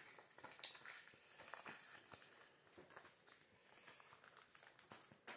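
Faint rustling and light clicks of Pokémon trading cards and clear plastic sleeves being picked up and laid down on a table.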